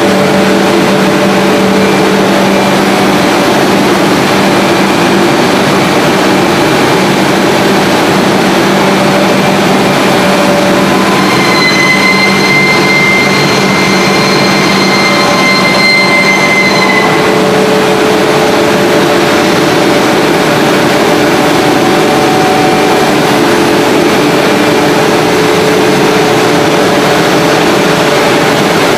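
HDPE pipe extrusion line running: a loud, steady machine drone with a low hum from its motors and pumps. A high whistling tone comes in about twelve seconds in and fades out some five seconds later.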